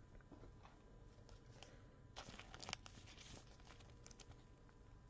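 Faint rustling and crinkling of a clear plastic card sleeve handled by gloved hands as a trading card is slipped into it. A cluster of small scrapes and clicks comes about two seconds in.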